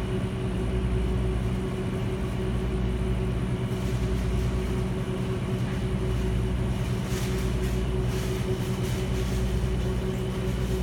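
Steady low electrical hum of commercial kitchen equipment, such as refrigeration or ventilation. A few faint paper rustles come about two-thirds of the way through as a sushi burrito is rolled up in its wrapping paper.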